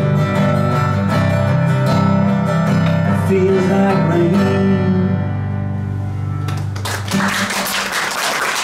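Acoustic guitar playing the closing bars of a song, its last chord ringing out about five seconds in. Audience applause starts near the end.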